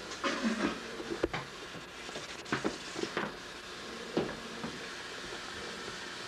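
Camcorder being handled close up: a handful of sharp knocks and clicks over a steady hiss.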